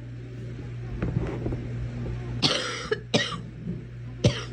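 A girl coughing: three short, sharp coughs in the second half, the first a little longer than the other two. A steady low hum runs underneath.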